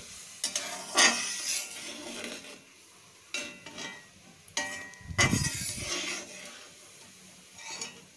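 A metal spatula scrapes and stirs around a metal kadai of heating coconut milk in separate strokes. A heavier scrape with a dull bump comes about five seconds in.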